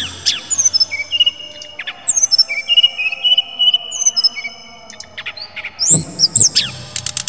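Brown-chested jungle flycatcher singing: quick rising and falling whistles, then long, level high-pitched whistled notes held through the middle, and a new run of sweeping whistles about six seconds in.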